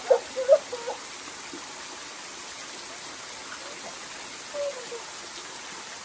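A small waterfall spilling over a rock ledge into a shallow pool: a steady rushing and splashing of falling water. A few short, high-pitched vocal cries sound in the first second, with one more brief cry near the end.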